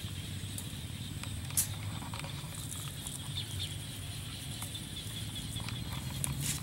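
A few light clicks and taps from handling a wire snake trap, over a steady low hum.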